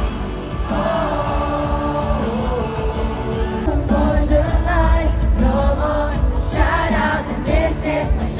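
Live K-pop concert music over stadium speakers, a song with a heavy bass beat and a sung melody, heard from among the crowd, with fans singing along.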